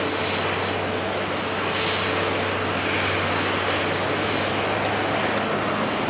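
Airbus A380-800's four Rolls-Royce Trent 900 turbofans running steadily as the airliner comes in on final approach with its landing gear down.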